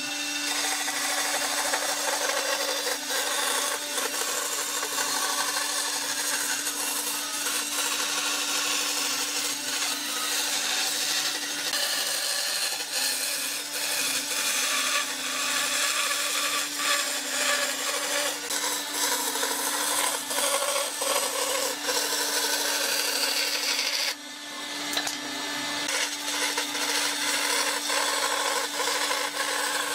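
Vertical band saw running and cutting a curve through a thick pine board, a steady rasping saw noise over a constant motor hum. The level briefly drops and builds again about four-fifths of the way through.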